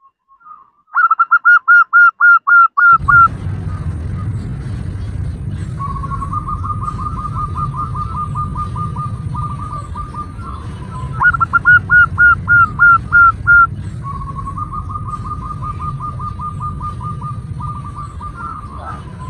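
Zebra dove (perkutut) calling: two loud runs of about eight quick staccato coos, about a second in and again about eleven seconds in, with longer, softer rapid trills of cooing notes between them. This is a female's call to males, used as a lure. A steady low rumble sets in about three seconds in.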